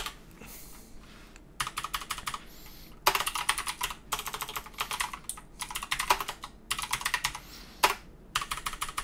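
Typing on a computer keyboard: quick runs of keystrokes with short pauses between them, starting about one and a half seconds in.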